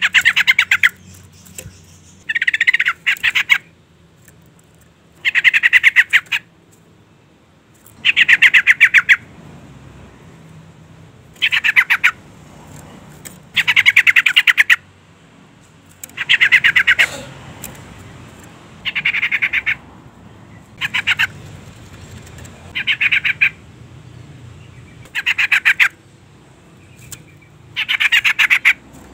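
Female yellow-vented bulbul (trucukan) calling, the call that draws a male to answer. It comes in short bursts of rapid chattering notes, one about every two to three seconds.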